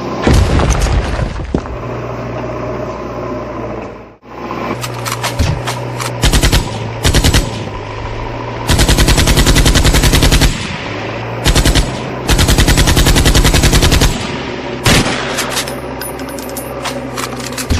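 Tank sound effect: a steady engine rumble with several bursts of rapid machine-gun fire laid over it, the longest lasting nearly two seconds.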